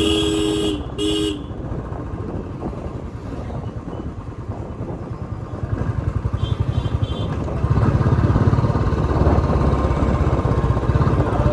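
Royal Enfield Classic 350 BS4's air-cooled 346 cc single-cylinder engine running on the move. Its exhaust thump grows louder about two-thirds of the way in as the bike picks up speed. A vehicle horn gives two short blasts right at the start, and a fainter, higher horn beeps near the middle.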